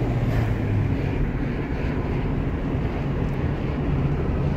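Steady road and engine rumble from inside a moving vehicle on a paved mountain road, with wind buffeting the microphone. A low engine drone fades about a second in.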